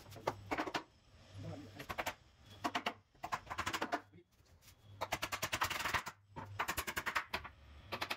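Claw hammers driving nails into the edges of a 12 mm plywood/block board bed-box frame: quick runs of sharp strikes, several a second, broken by short pauses.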